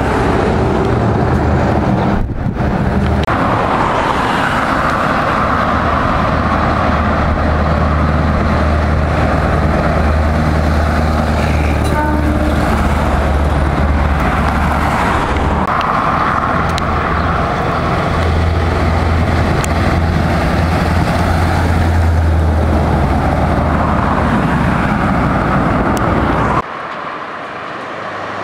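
Scania V8 truck engines with straight-pipe exhausts running loud and low as the trucks pull away and drive past, the engine note rising and changing several times. The sound drops abruptly near the end.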